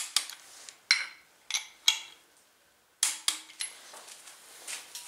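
Sharp metallic clicks and clinks, about eight in all with short ringing, from a small torque wrench and extension working on a knock sensor in the valley of an LS V8 block and being lifted off it.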